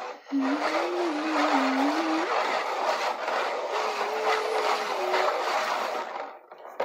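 Water in a small plastic tub being swished and swirled around by hand, a steady sloshing rush that stops about six seconds in. A low wavering hum sounds over it twice, first for about two seconds and then again about four seconds in.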